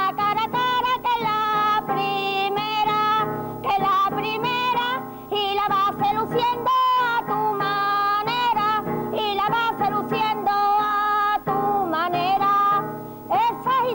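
A woman singing with her own acoustic guitar accompaniment, her voice carrying long, wavering held notes.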